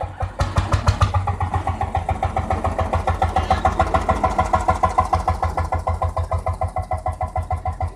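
Vintage tractor engine running with an even, regular firing beat, picking up a little about half a second in and then holding steady.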